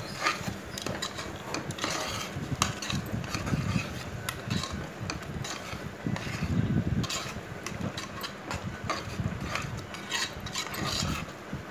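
Metal ladle stirring a thick masala with freshly added curd in a pressure cooker, scraping and clinking against the pot in irregular strokes.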